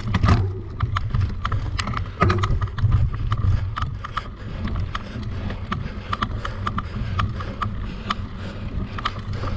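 Mountain bike being ridden over rough ground: a steady low rumble of wind on the camera microphone, with many irregular clicks and rattles from the bike.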